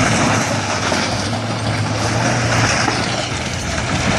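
A heavy machine's engine running steadily: a low drone under a loud, even rushing noise.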